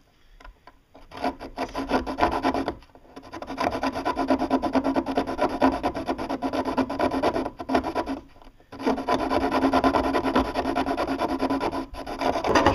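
A small hand-held saw blade sawing through a boat's fiberglass pontoon skin with quick back-and-forth rasping strokes. The strokes stop briefly about three seconds in and again for about a second around eight seconds.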